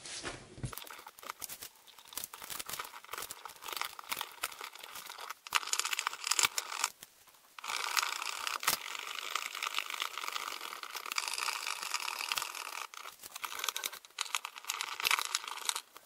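Clicking, scraping and rustling of a wall receptacle and its wires being pushed back into a metal electrical box and fastened, with a brief lull about seven seconds in.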